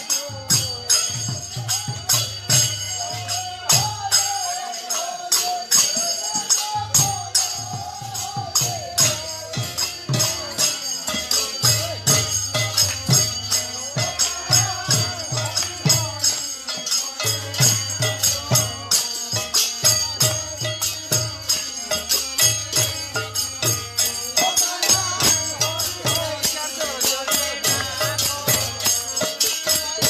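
Bengali village kirtan music. A khol barrel drum plays runs of rapid low strokes with short breaks between them, hand cymbals (kartal) clash in a steady ringing beat, and a group of voices chants the devotional song.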